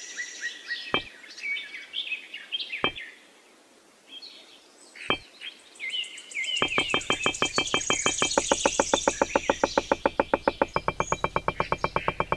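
Small birds chirping. A few single clicks come in the first half, then a fast, even run of clicks, several a second, as tiny clay bricks are set down one after another around a miniature pond.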